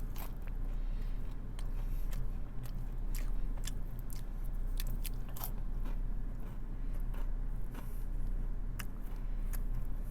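Close-up chewing of a crunchy chicken tender: many small, sharp crunches and bites.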